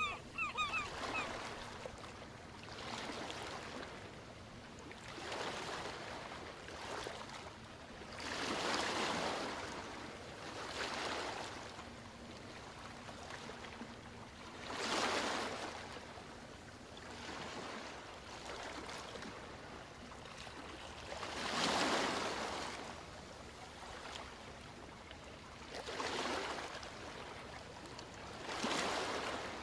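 Ocean waves breaking and washing up the shore, a louder surge every six or seven seconds between quieter wash. A few short bird calls right at the start.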